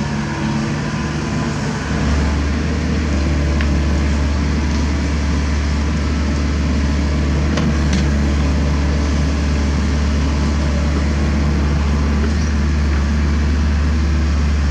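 Kobelco SK75 mini excavator's diesel engine running under load. Its drone rises to a louder, steady working level about two seconds in, with a few sharp clicks over it.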